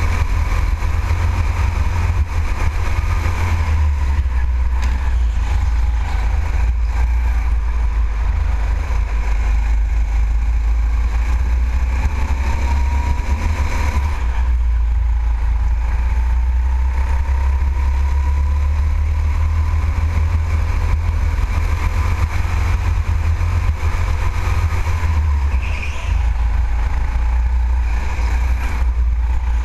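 Go-kart running at racing speed, heard from on board: a motor whine that rises and falls with speed through the corners, over a heavy steady rumble from wind and vibration on the mounted camera.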